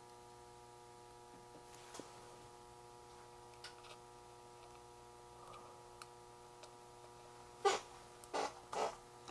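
Faint clicks and rustles of small electronic parts being handled on a workbench, with a few sharper clicks bunched together near the end, over a faint steady hum.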